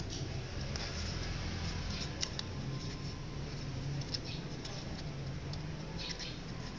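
Sheet of origami paper crinkling and rustling in the fingers as it is pinched and shaped into a paper cat, with scattered small crackles over a steady low hum.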